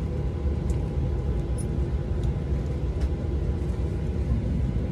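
Steady low rumble of a jet airliner's cabin before takeoff, with a faint steady whine over it.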